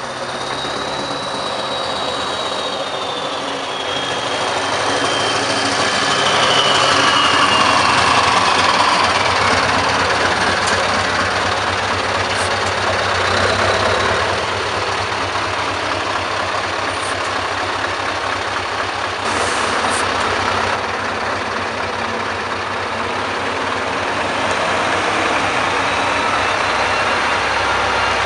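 Scania R-series V8 diesel truck engine running at low revs, never revved hard. A high whistle falls slowly in pitch over the first several seconds, and a brief hiss comes about two-thirds of the way through.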